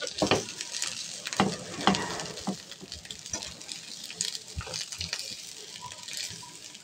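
White plastic spatula stirring, scraping and pressing a mashed potato-and-chicken filling around a nonstick pan, in irregular strokes over a faint steady hiss.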